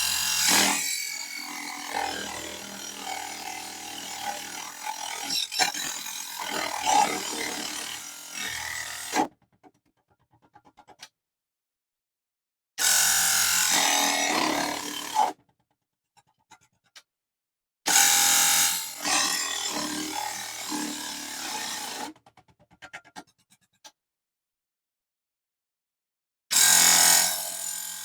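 Mini table saw running at 12 volts and cutting small aluminum channel, blade grinding through the metal in four separate passes: a long one of about nine seconds, then two shorter ones, and another starting near the end, each starting and stopping abruptly.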